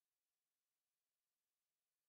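Near silence: a silent soundtrack with only a very faint, even hiss.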